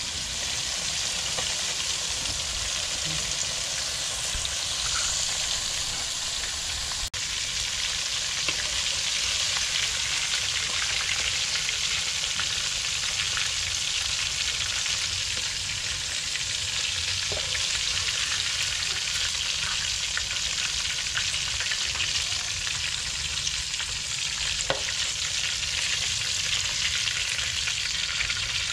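Pieces of red snapper fish sizzling steadily as they fry in hot oil, with a momentary break about seven seconds in.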